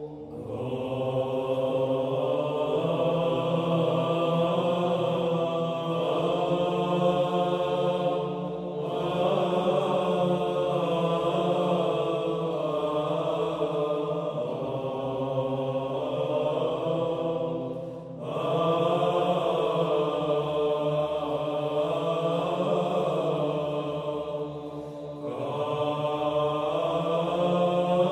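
Background music of slow chanting voices holding long notes, in long phrases with brief dips between them.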